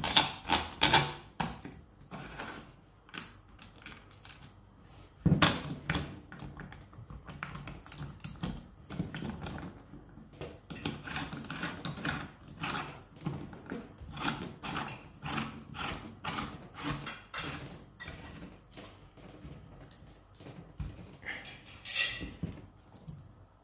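Irregular clicking and rattling of plastic and metal parts as the chain-tensioning knob and sprocket cover of a Parkside PAHE 20-Li A1 cordless pole pruner are fitted and tightened by hand, with a louder knock about five seconds in.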